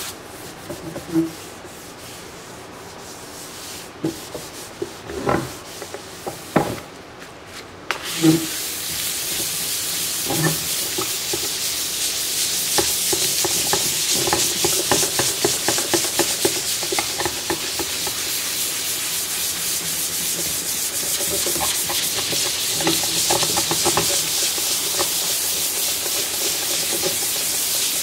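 A sanding sponge is rubbed by hand over the surface of a resin painting, scuffing the resin ahead of a flood coat. For the first several seconds there is light rubbing with a few knocks. From about eight seconds in it becomes a steady, fast back-and-forth rasp.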